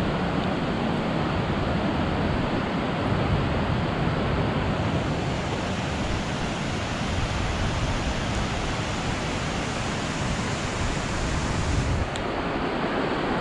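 Steady rush of water from a rain-swollen creek. The hiss brightens from about five seconds in until near the end.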